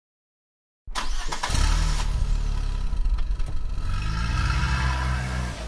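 Vehicle engine sound cutting in abruptly out of silence about a second in, then running with its pitch rising and falling as if revving.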